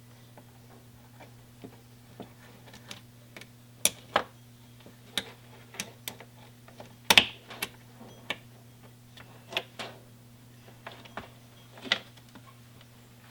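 Irregular small clicks and taps of hand work on cable fittings, the loudest a sharp double click about seven seconds in, over a steady low hum.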